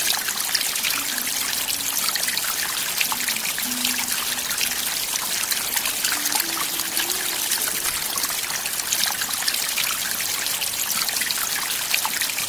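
Small woodland stream trickling and splashing down a cascade of mossy rock steps, a steady even rush of water.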